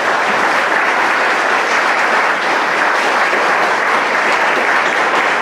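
A large seated crowd applauding steadily.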